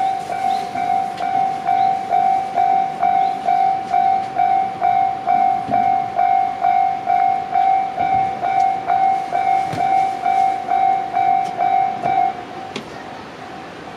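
Japanese railway level-crossing warning bell ringing its repeated electronic clang, about two strokes a second. It stops suddenly about 12 seconds in.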